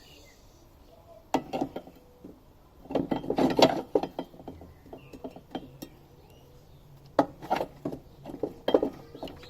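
Metal mower parts clinking and knocking as they are handled and fitted together, in several short clusters of clicks.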